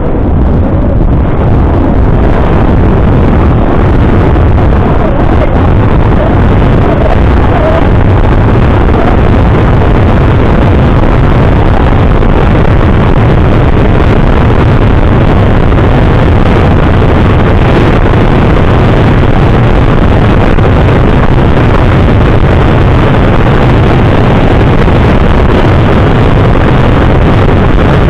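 Loud, steady wind rumble and rush buffeting the microphone, unbroken throughout.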